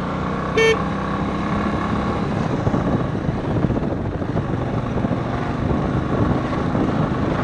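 Motorcycle riding along a mountain road: a steady engine hum and wind on the microphone, with one short horn beep about half a second in.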